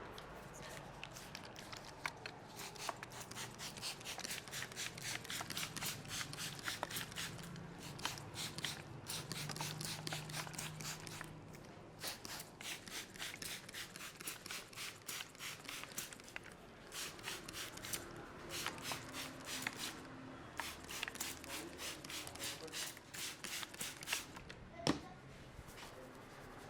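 Hands working over a head and hair in a head massage: a dense run of fast crackling, rubbing clicks, pausing briefly a few times, with one sharp crack near the end.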